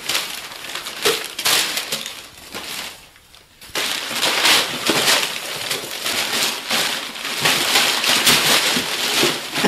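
Newspaper and tissue paper crumpling and rustling as it is scooped up and tossed in armfuls, dense and loud, with a short lull about three seconds in.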